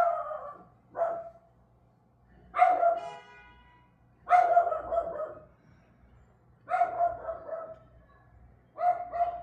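Dog barking in about six short runs of barks, one to two seconds apart, with quiet between.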